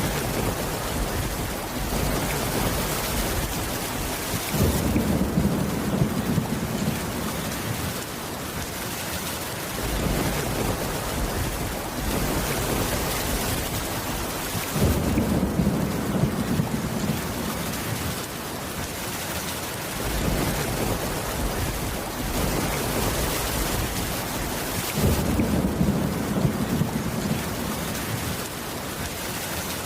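Steady heavy rain with thunder rumbling three times, each rumble lasting about five seconds and coming about every ten seconds.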